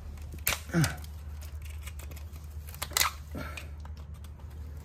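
Oyster knife scraping and prying against a hard oyster shell as it is worked open by hand, with two sharp clicks of blade on shell, about half a second in and again at three seconds.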